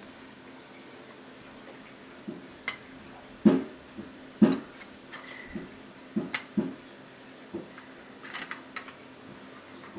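Construction-kit parts being handled and set down: about a dozen irregular sharp knocks and clicks, the loudest two about three and a half and four and a half seconds in, with a quick run of small clicks near the end, over a faint steady hum.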